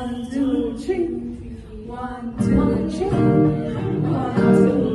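Singing with guitar accompaniment, growing fuller and louder about halfway through.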